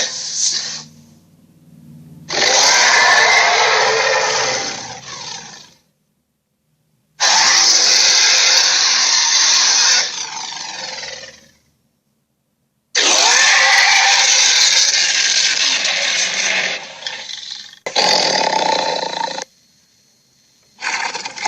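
Tyrannosaurus rex roar sound effects: a run of separate harsh roars, each a few seconds long, with silent gaps between them.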